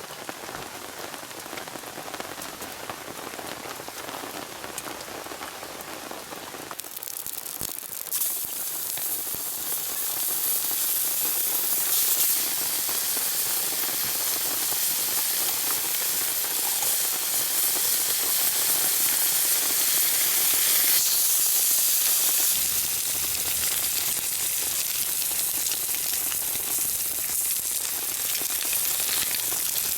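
Rain falling steadily. About seven seconds in, the sound turns into a louder, brighter hiss that holds on.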